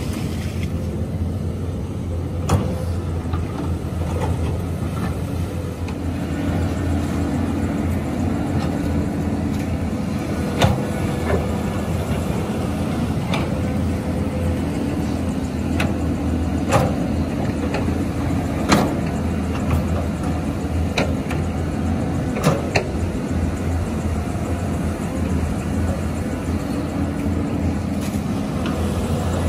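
Caterpillar 320C hydraulic excavator's diesel engine running steadily under digging load, with a sharp knock or clank every few seconds as the bucket and arm work the soil.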